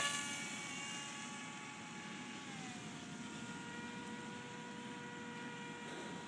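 Litehawk Swift radio-control airplane's small electric motor and propeller whining steadily in flight. The pitch drops a step about two and a half seconds in, then holds level.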